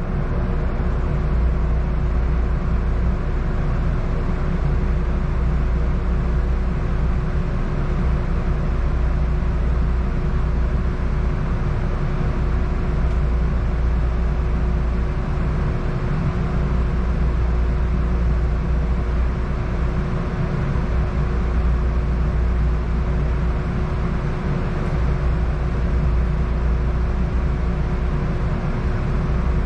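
Cabin sound of a Siemens S70 streetcar standing still: a steady low hum with one constant tone running through it.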